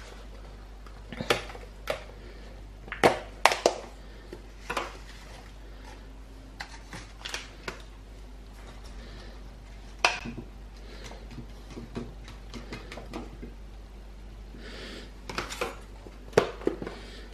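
Cutlery and a plate clinking and knocking on a kitchen counter: scattered sharp clicks with quiet gaps between, loudest about three seconds in and again near the end.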